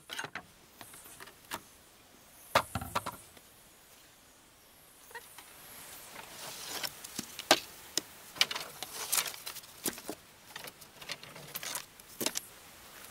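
Wooden planks knocking and clattering as they are handled: a heavier thump about two and a half seconds in, then a run of light, irregular knocks from about six seconds on.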